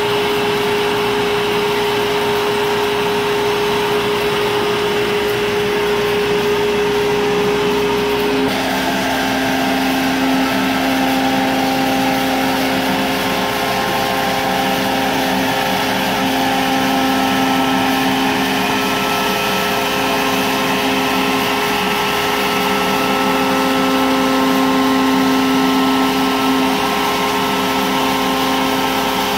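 CNC router spindle running and cutting through an aluminium composite panel, with the dust collection drawing air through the brush shoe: a steady whine over a hiss. The whine drops in pitch about eight seconds in.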